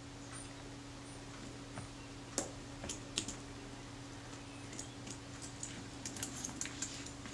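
Faint, scattered metallic clicks and ticks from a jeweller's screwdriver working the tiny screws out of a Kodak Retina IIIS shutter's mechanism plate. The clicks come thicker near the end, over a faint steady hum.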